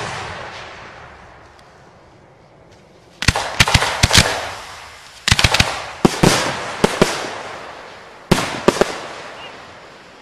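Aerial fireworks shells going off: about four clusters of sharp bangs, each trailing off in a long echo.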